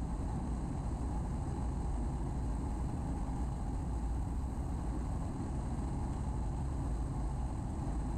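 Steady in-flight drone of a Piper Cherokee Six's 300 hp six-cylinder Lycoming engine and three-blade propeller in a climb, mixed with wind noise on a camera mounted outside the airplane.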